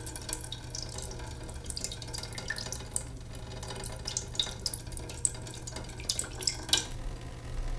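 Leaking sink: water dripping and trickling in small, irregular drops over a low, steady hum.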